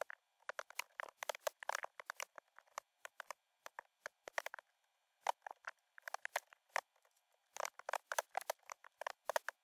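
Typing on a computer keyboard: quick runs of keystroke clicks in several bursts with short pauses between them.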